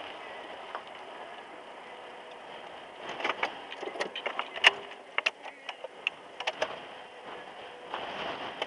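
Car running with a steady background noise, and about three seconds in a run of irregular sharp ticks and taps for some four seconds.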